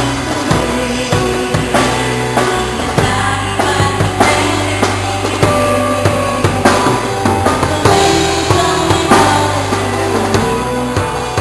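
A band playing an instrumental passage: a drum kit keeps a steady beat with bass drum and snare under sustained bass notes and held melodic notes.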